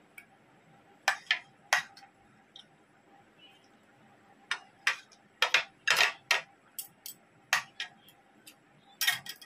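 Metal spoon and fork clinking and scraping against a ceramic plate while eating, in short irregular clicks: a few about a second in, a quick run in the middle, and a cluster near the end.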